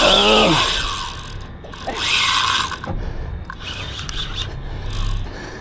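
Spinning reel winding in a hooked fish, its gears and drag giving a ratcheting whir in two bursts, at the start and about two seconds in.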